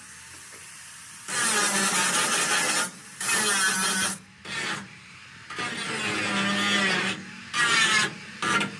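Abrasive rubbing or rasping, likely workshop tool work, in about six separate bursts of up to a second and a half each, over a faint steady low hum.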